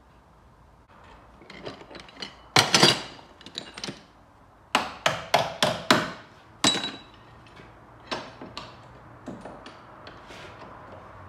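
Hammer blows on the sheet metal of a car's front wheel arch during panel repair. There are a few quick heavy strikes about two and a half seconds in, then the loudest part: a run of sharp strikes about three a second between about five and seven seconds in. Lighter scattered taps come before and after.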